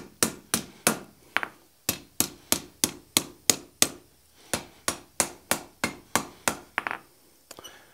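Hand hammer striking red-hot half-inch round steel bar on an anvil, scrolling the bar's end over: a steady run of sharp blows, about three a second, with a short pause a little after four seconds in, stopping shortly before the end.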